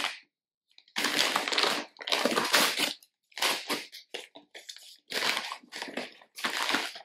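Paper rustling and crinkling as sheets and packaging are handled, in a run of irregular bursts, the longest and loudest in the first few seconds and shorter ones after.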